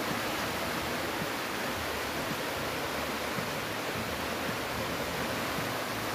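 Shallow river water rushing steadily over a bed of rocks and stones.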